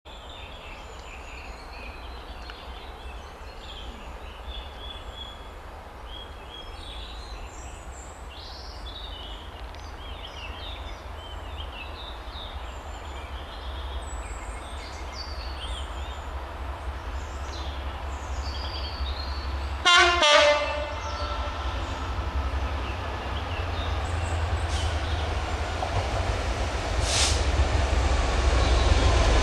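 Freightliner Class 66 diesel locomotive, with its EMD two-stroke V12 engine, approaching with a hopper train, its engine noise growing steadily louder. About two-thirds of the way in it gives one short horn blast in two tones, the loudest sound. Birds sing through the first half.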